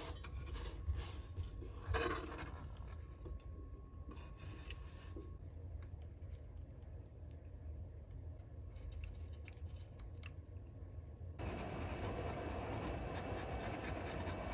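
Light scratches, rubs and clicks of work on an amplifier circuit board over a low hum. About eleven seconds in, a steady airy hiss starts as a hot-air rework nozzle blows onto the board while a wooden stick scrapes off old glue.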